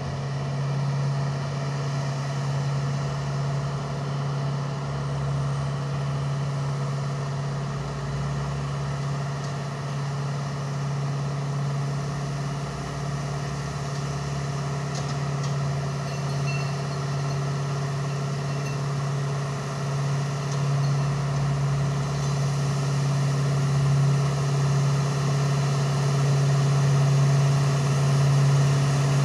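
Diesel truck engines running steadily at low revs, a continuous low drone that grows louder near the end as another truck comes up the road.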